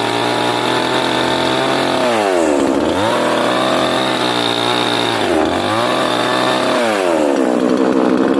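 Two-stroke chainsaw running at high speed while cutting wood, its engine note sagging and picking up again about three times.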